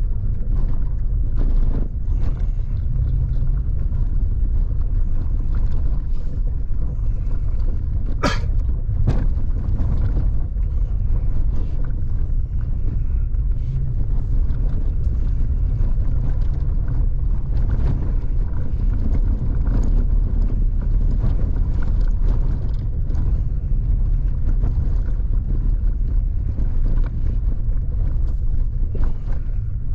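Vehicle driving on a forest road: a steady low rumble of engine and tyres, scattered small knocks and rattles from the rough surface, and one sharp knock about eight seconds in.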